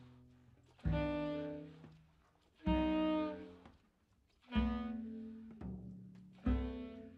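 A large mixed ensemble of strings, winds and brass plays four loud accented chords, about two seconds apart, each struck together and then fading away before the next.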